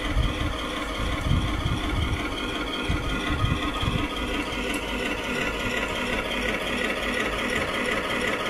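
A Heng Long King Tiger RC tank's electronic sound unit playing a recorded Tiger I tank engine idling, a steady rumble that does not change.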